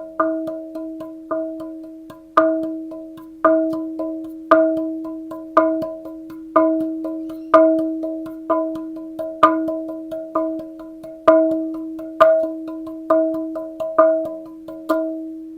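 A metal part of the Yamaha B-6 amplifier being tapped rhythmically like a drum. Each strike rings at the same pitch and fades away, with a strong hit about once a second and lighter taps in between.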